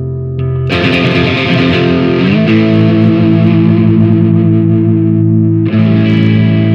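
Fender Esquire electric guitar played through an overdriven Marshall 6100 amp: distorted chords strummed and left to ring, with a slide up in pitch about two seconds in and a fresh strum near the end.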